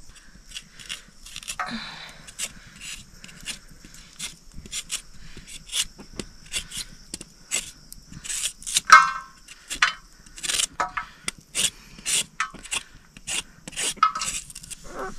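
Rhythmic scraping strokes, two or three a second, of squash root being worked for a curry. About nine seconds in comes one louder, ringing metallic knock.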